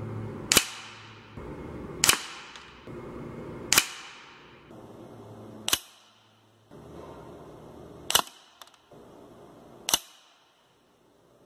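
Six sharp shots from a Gamo CFX .177 air rifle firing pellets at a target on a wooden backstop, each a single crack as the pellet hits, spaced roughly one and a half to two and a half seconds apart.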